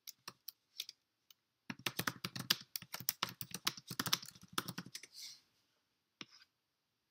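Typing on a keyboard: a few scattered key clicks, then a fast run of keystrokes for about three seconds, and a single click near the end as the search is entered.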